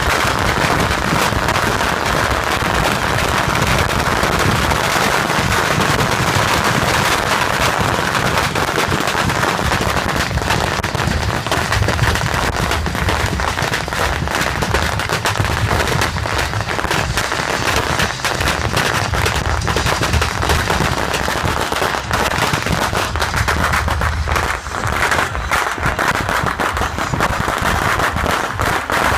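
A beehive fireworks battery, a rack of bottle rockets firing off en masse: a dense, unbroken crackle of launches and bangs over a steady hiss.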